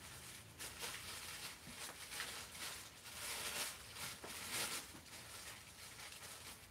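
Faint rustling and crinkling of packing material being handled, in several short bursts.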